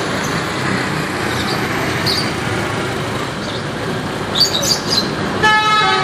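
Road traffic noise, then about five seconds in a Pahala Kencana bus's multi-tone telolet horn starts, several tones sounding together as one held chord. A few short high sounds come just before the horn.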